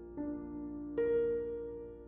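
Soft background music of sustained notes, with a new note coming in just after the start and another about a second in.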